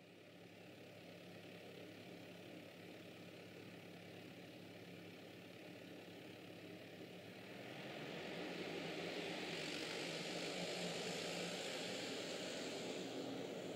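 JCB 8085 midi excavator's diesel engine running steadily. It grows louder, with more hiss, from about eight seconds in as the excavator starts working its bucket at the ground.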